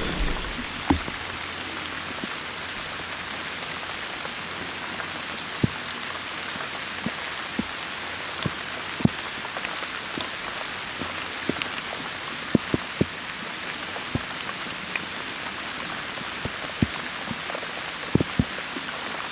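Steady rain falling, with individual heavy drops tapping sharply close by at irregular intervals.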